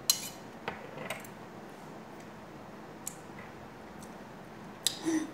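A metal spoon clinking against a mixing bowl: a handful of separate light clinks, the sharpest right at the start and another pair near the end.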